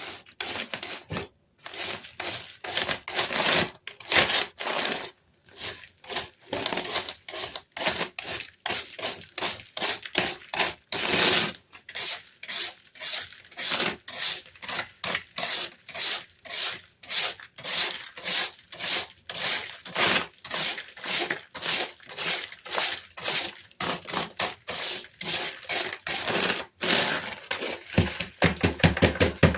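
Steady back-and-forth scrubbing on a Dell keyboard being cleaned, about two to three strokes a second, with a quicker run of short strokes near the end.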